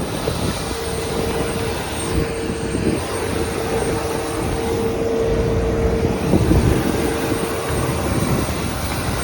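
Airliner engine noise: a steady low rumble with a held droning tone that fades out about eight seconds in, and a thin high whine over it.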